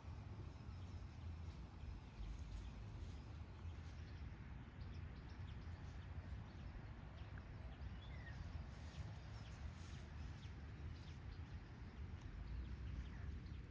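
Quiet outdoor yard ambience: a steady low rumble with faint scattered rustling ticks and a couple of faint, brief bird chirps.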